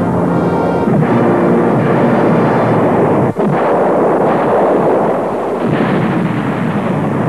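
Cartoon explosion sound effects: a continuous heavy blasting rumble that breaks off for an instant about three seconds in and starts again, with music underneath.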